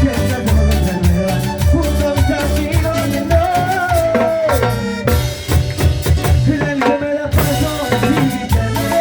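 Salsa music with a steady beat of drums and percussion over a bass line, with a melodic line that glides up and down near the middle.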